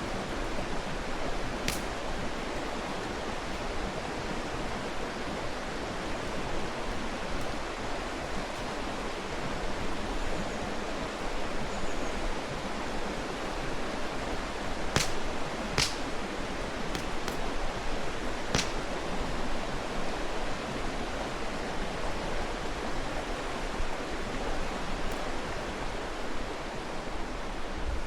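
Mountain stream flowing steadily, with a few sharp pops from the burning campfire wood, several of them close together about halfway through.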